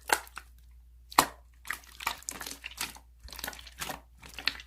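Slime being squished and worked by hand: a sharp click about a second in, then a run of small wet crackles and pops.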